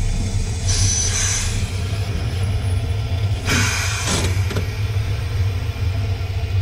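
Cab of the narrow gauge 2-6-2 steam tank engine Fox standing with a steady low rumble, and two short bursts of steam hiss, about a second in and again about three and a half seconds in, as the cab controls are worked.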